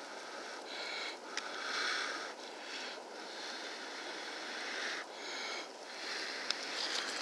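A man blowing on a glowing char cloth ember held up to his mouth, a series of long breathy blows with short pauses between them, to coax it into flame.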